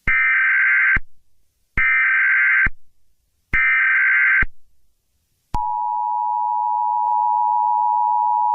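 Emergency Alert System alert tones: three buzzy data bursts of the SAME header, each about a second long with short gaps, then, about two-thirds of the way through, the steady two-tone EAS attention signal starts and holds.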